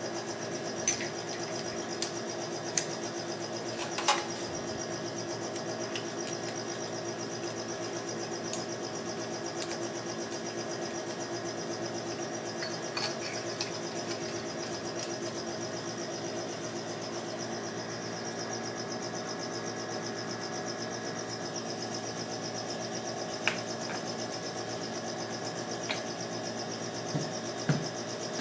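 Stainless-steel parts of a manual bone mill clicking and clinking as they are handled and fitted together. There are several sharp clicks in the first few seconds, a couple midway and a few more near the end, over a steady mechanical hum.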